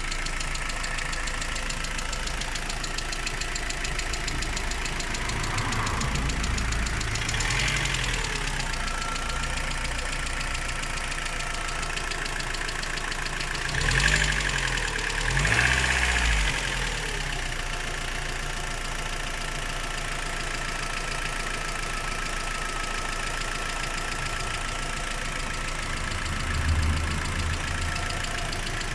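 Rover 25 engine idling with a strange noise the owner cannot place, blipped several times: a rev at about six seconds, two quick revs in the middle, and a short one near the end. A thin steady whine sits over the idle for most of the time.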